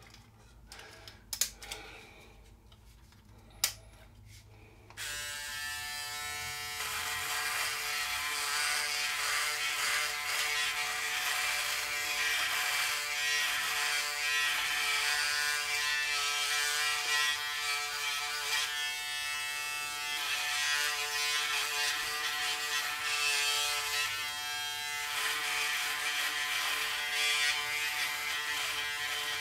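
Braun Series 6 electric shaver: a few light clicks while it is handled, then about five seconds in the motor switches on and buzzes steadily as it cuts thick stubble on the neck and chin, its tone shifting slightly as it moves over the skin.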